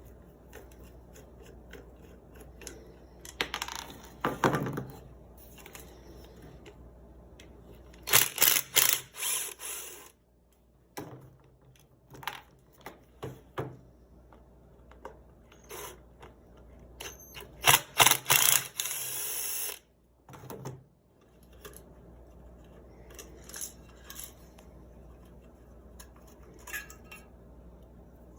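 Clicks, scrapes and rattles of a Daisy 105 Buck BB gun's small metal parts being handled and taken apart with tools, with three louder clattering spells.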